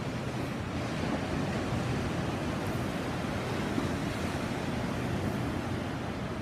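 Sea surf washing on the shore as a steady rushing noise with no single wave standing out.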